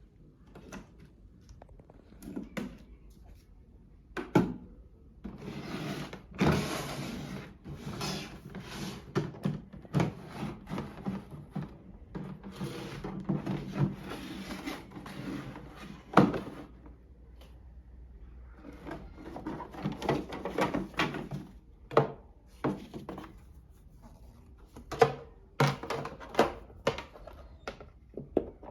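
Packaging and plastic parts of a toy washing machine being handled during unboxing: irregular rustling and scraping, broken by light knocks and a few sharper clicks and thuds.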